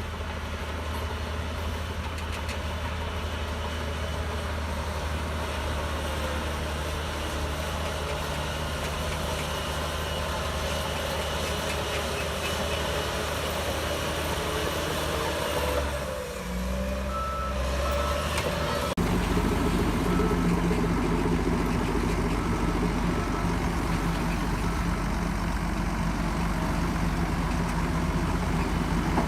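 Diesel engine of a Shantui DH17C3 bulldozer running steadily under load while working soil. Its note dips and shifts briefly past the middle, then turns abruptly louder and deeper. Over the second half a reversing alarm beeps at an even pace.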